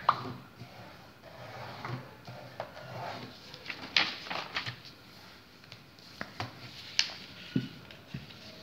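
A sheet of paper being handled and folded on a table: irregular rustling and crinkling, with a few sharp crackles just after the start, about four seconds in and about seven seconds in.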